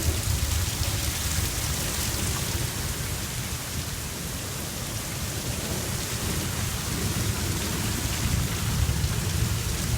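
Heavy rain falling steadily, with a low rumble of thunder running underneath.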